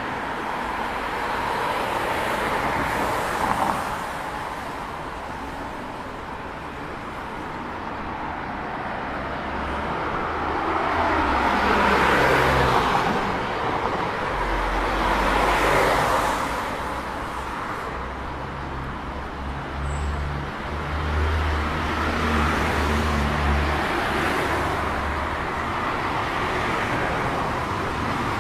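Cars passing on a wet city street, their tyres hissing on the wet road. The loudest passes come about 12 and 16 seconds in, with engine rumble through the middle stretch.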